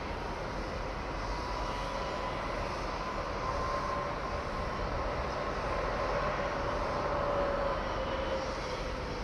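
Steady outdoor hum of distant engines or machinery, with a faint tone that rises slightly in pitch and then slowly falls.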